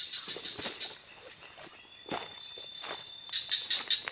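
Night insect chorus of crickets, a steady high-pitched trilling, with scattered rustles and crackles from movement on dry leaf litter.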